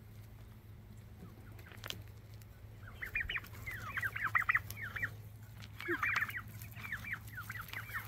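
A backyard flock of chickens and turkeys calling: rapid runs of short, high, downward-slurred peeps, starting about three seconds in and coming in two bouts.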